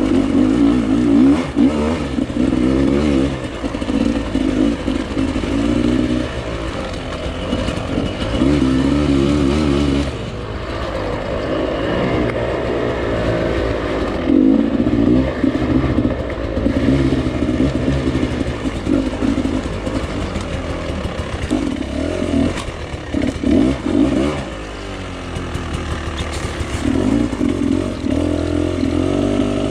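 Beta 300RR two-stroke dirt bike engine being ridden, its revs rising and falling in repeated surges every second or two.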